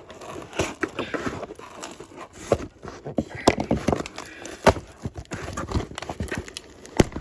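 A package being opened and its contents handled by hand: irregular knocks, clicks and crackly rustling, with a sharp knock shortly before the end.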